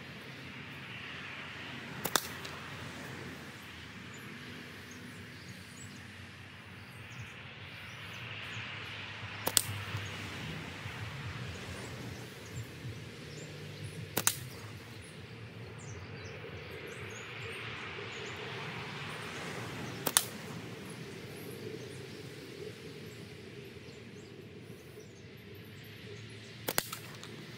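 Flat-band slingshot firing clay balls at aluminium soda cans: five sharp, short cracks about five to six seconds apart, each a snap of the bands with the clay ball striking a can almost at once, over a steady outdoor background.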